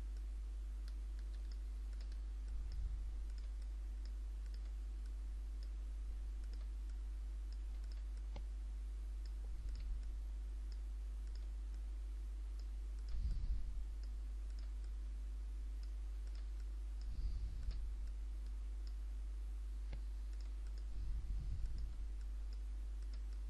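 Computer mouse clicking repeatedly, about a click every second, over a steady low electrical hum, with a few soft low thumps.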